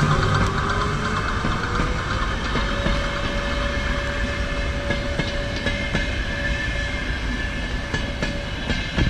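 Double-deck passenger train carriages rolling past: a steady rumble of wheels on rails with scattered clicks over the rail joints, and a whine that rises in pitch over the first few seconds and then holds steady.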